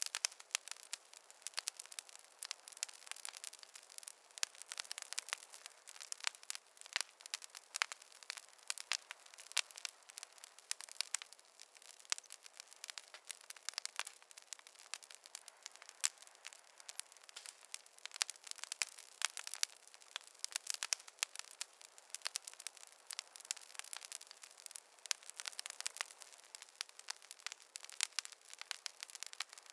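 Wood fire crackling: many small sharp pops and snaps at an irregular pace over a faint hiss.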